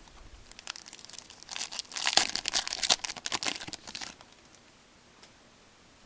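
Foil wrapper of a hockey card pack crinkling and tearing as it is opened by hand. The crackling starts about half a second in, is busiest in the middle and stops about two seconds before the end.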